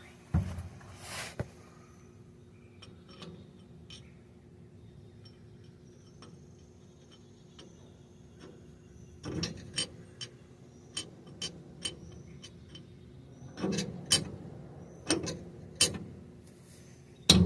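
Irregular sharp metallic taps and clinks of a hammer on a steel punch, driving a bearing race out of a differential carrier. The taps begin about halfway in and come in small clusters of light strikes.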